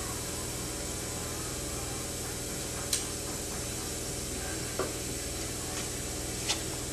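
Steady background hiss and low hum, broken by three light clicks and taps from small parts and tools being handled on a workbench.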